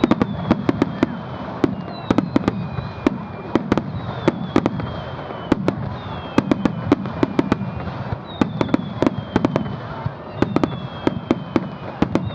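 Fireworks display: a rapid, irregular run of sharp bangs and crackles as many shells burst, overlaid by several high whistles that fall slowly in pitch.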